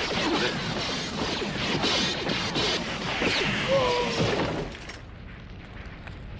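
Animated sci-fi gunfire sound effects: a rapid volley of ray-gun shots with a few cries as men are shot down. About three-quarters of the way through, the volley stops and drops to a quieter background.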